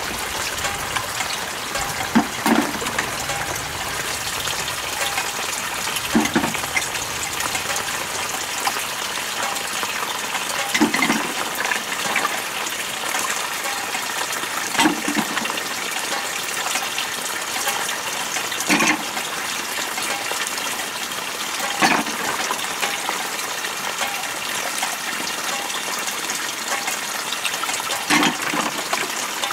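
Water running steadily from a hose onto a bamboo-slat floor, with a short knock about every three to four seconds as snails are lifted from a basin of water and dropped into a woven bamboo tray.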